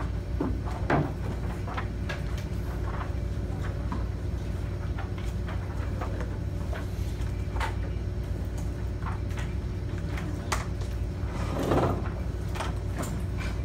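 Classroom room sound: a steady low hum from the ventilation and ceiling projector, with scattered small clicks and rustles of papers and desks, and a brief louder rustle near the end.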